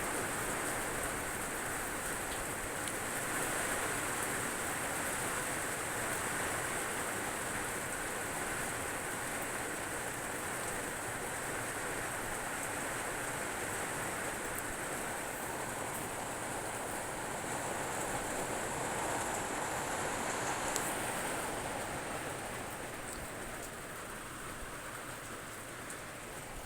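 Heavy rain falling steadily, a continuous hiss, easing slightly in the last few seconds.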